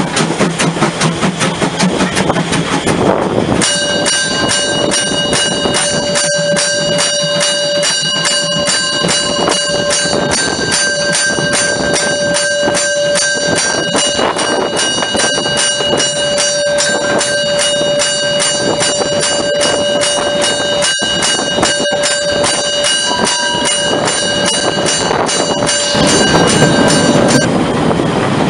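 750 mm narrow-gauge steam train running with a rapid, regular beat. From about four seconds in until shortly before the end, a steady high squeal of several fixed tones lies over it.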